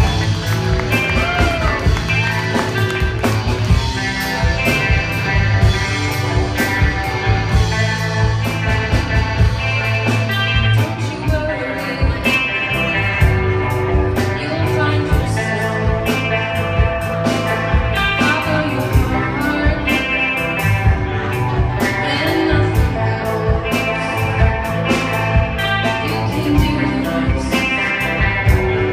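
Live rock band playing: electric guitars and bass over a steady drum-kit beat, with a singer's voice through the PA.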